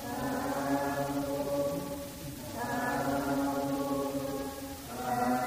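Theravada Buddhist chanting held on one steady monotone pitch, in phrases of about two and a half seconds separated by short pauses for breath.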